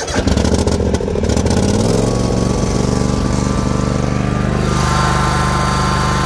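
22-horsepower Kawasaki commercial V-twin engine on a zero-turn mower, just started: running a little unevenly for the first second or two, then settling into a steady idle.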